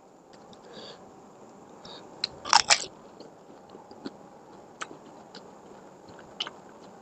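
Crisp fuchka (pani puri) shell crunching in one loud bite about two and a half seconds in, then quiet chewing with scattered small mouth clicks.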